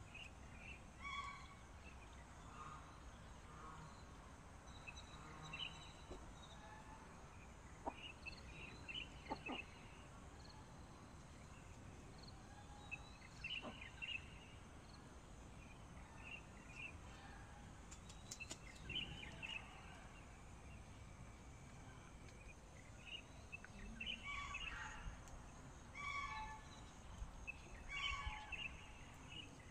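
Quiet hen-house sound: chickens clucking softly now and then, with short high calls and a few light clicks over a low background hum.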